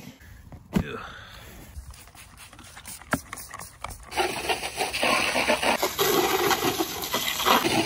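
A few scattered clicks and scrapes, then, about halfway through, a garden hose's jet of water starts spraying loudly against the plastic pieces of a child's potty seat.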